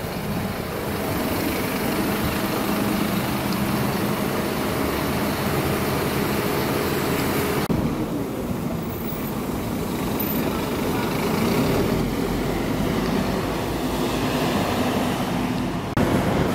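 Scania OmniCity double-decker bus running, heard from inside the cabin as a steady engine hum with road and interior noise. The upper hiss drops away about halfway through, and the sound suddenly gets louder near the end.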